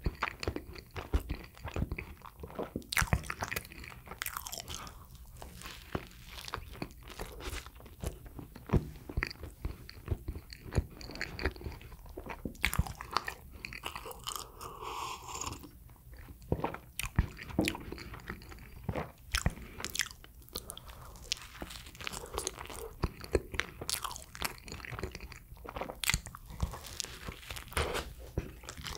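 A person eating soft sweet bread close to the microphone: irregular bites, chewing and sharp wet mouth clicks.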